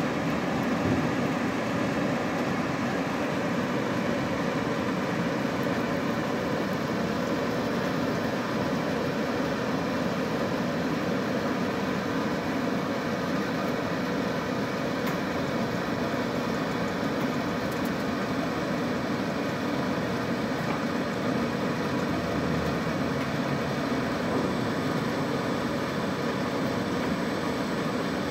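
Steady hum and hiss of an automated pipe-hole cutting machine running, as the pipe is turned and the torch head is moved between programmed hole positions.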